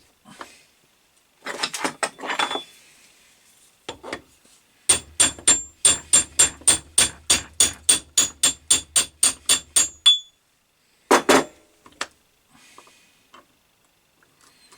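Rapid metal-on-metal strokes on the steel finger of an Atlas 10 lathe's fixed steady, about four a second for some five seconds, each with a short high ringing note. Scattered knocks come before the run and one louder clatter after it.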